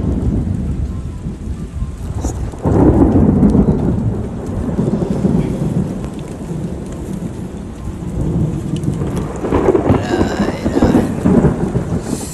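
Thunder rumbling in a thunderstorm over a steady wash of storm noise, with a sudden loud peal about three seconds in and another long swell of rumbling near the end.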